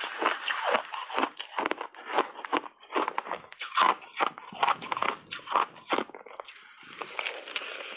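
Crunchy blended shaved ice being bitten and chewed: a quick, uneven run of sharp crunches, easing briefly shortly before the end.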